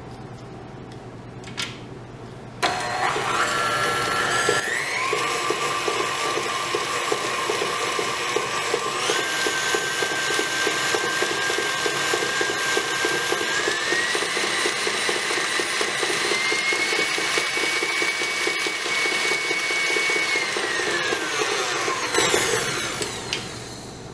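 KitchenAid Ultra Power stand mixer beating cream cheese icing with its flat paddle. The motor whines up about 3 s in and steps higher in pitch several times as the speed lever is moved up. About 22 s in it is switched off and winds down, the whine falling away.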